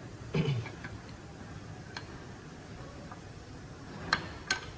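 A few sharp metallic clicks as a retainer is fitted onto a truck air-disc brake caliper, with a single click about two seconds in and two close together near the end.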